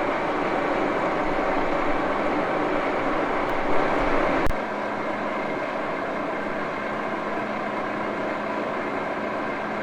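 Gear-head engine lathe running steadily, a 1941 Axelson. About four and a half seconds in there is a sharp click, after which the sound drops slightly and a steady hum is left.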